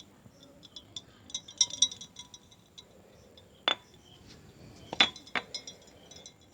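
Light clinking and tapping on glass or a hard dish: a quick flurry of small clicks, then three sharper knocks.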